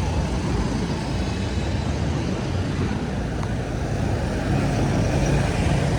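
Steady street traffic noise, with vehicle engines running close by.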